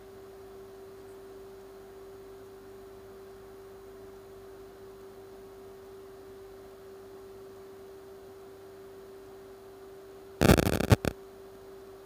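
Steady single-pitched hum-like tone from the microwave test bench equipment. About ten and a half seconds in, a short, loud clatter of knocks cuts across it.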